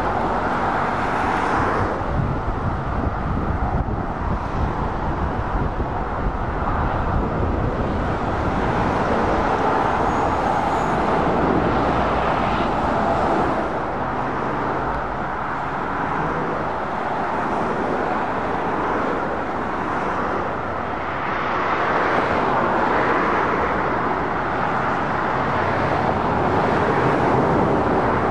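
Dual-carriageway traffic going by: articulated lorries and cars passing one after another, their diesel engines and tyre noise making a steady rush that swells and eases with each pass.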